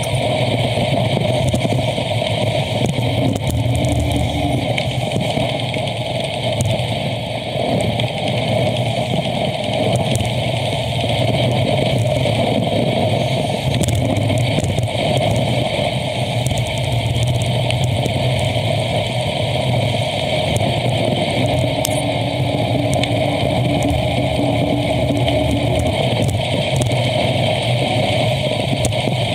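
Steady road and traffic noise heard from a bicycle riding along a road: a constant rush of noise, with the hum of passing motor vehicles a few seconds in and again near the end.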